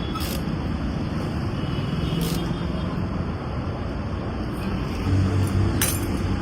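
A steady low engine rumble, with a few brief sharp clicks.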